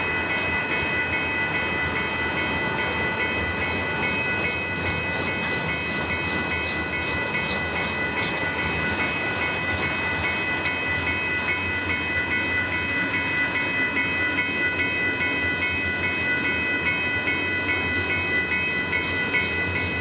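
Union Pacific double-stack intermodal train rolling steadily past: the container cars' wheels rumble and click in a regular rhythm over the rails, with steady high-pitched ringing tones above the rumble.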